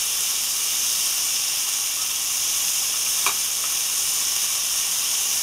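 Ribeye steak strips and onions sizzling in olive oil in a small non-stick pan on high heat, a steady hiss. One short click about three seconds in.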